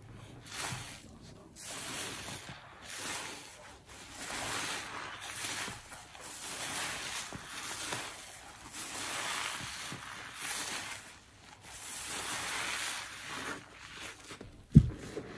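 Soapy kitchen sponges squeezed and wrung in gloved hands in a tub of thick suds: wet squelching and crackling foam, swelling and fading every second or two. A single loud thump near the end.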